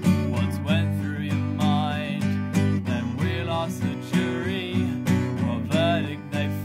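Acoustic guitar strummed in a steady rhythm, with a man's voice singing over it.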